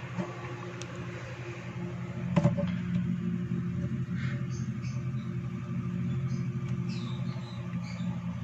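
A steady low machine hum, with a single knock about two and a half seconds in.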